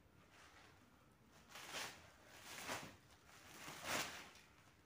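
Plastic parcel wrapping rustling and crinkling as it is pulled and torn off, in three swells about a second apart, the last the loudest.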